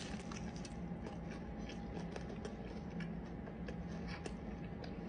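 A person biting into and chewing a crispy fried chicken sandwich: faint, irregular small crunches and mouth noises.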